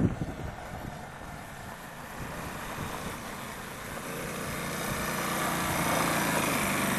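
Small engine of a child's youth quad (ATV) running as it rides over dirt toward the microphone, growing steadily louder over the last few seconds. Wind buffeting on the microphone dies away at the start.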